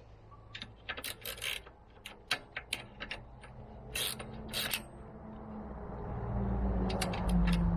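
A run of sharp, irregular metallic clicks and clinks from hand tools during suspension-arm work, then a low hum that builds and grows loud near the end.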